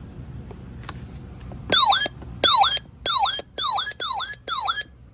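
Radio Shack weather radio sounding its alert test: after a few faint clicks, a string of short, loud, swooping electronic warble beeps begins about two seconds in, six of them in quick succession. This beeping is all the test this radio can give.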